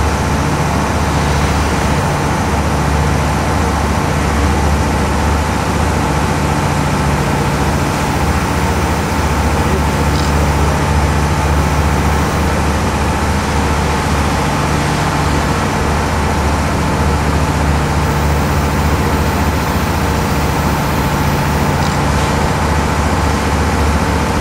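Steady low drone of diesel train locomotives running at a standstill, with a constant engine hum and an even rushing noise over it.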